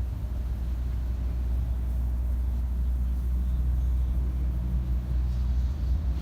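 Steady low engine rumble, as of a motor running nearby, with no clear spray hiss above it.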